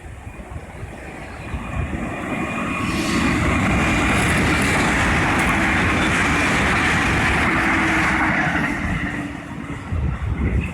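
A train passing a level crossing: the rumble builds over a couple of seconds, stays loud for about six seconds, then falls away near the end.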